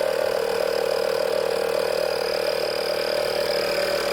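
A 12-volt tyre-inflator compressor running steadily with a high whine, pumping air into an engine's intake to pressurise it for a vacuum-leak test.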